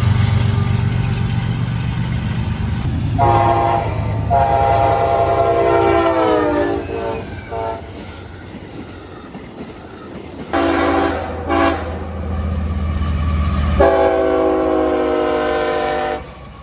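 Freight locomotive sounding its multi-chime air horn in a long-long-short-long run of blasts, the second blast sagging in pitch as it ends, over the low diesel rumble of the passing train: a grade-crossing warning.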